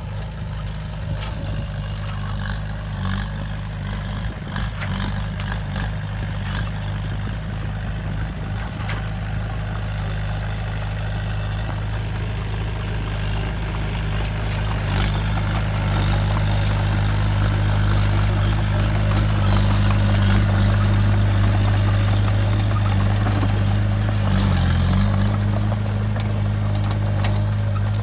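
Heavy diesel engine of earthmoving machinery running steadily, a deep even drone that grows a little louder about halfway through, with faint knocks now and then.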